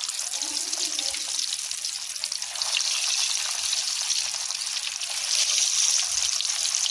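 Seasoned, parboiled potatoes sizzling in hot oil in a pan: a steady crackling hiss that swells a little partway through.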